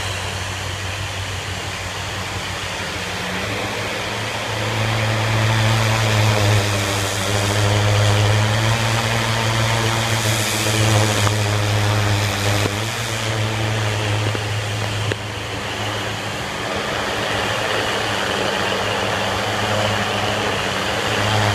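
Pressure washer running steadily, its engine humming under the hiss of the spray from the wand blasting grime off a painted concrete wall. It gets louder about four and a half seconds in.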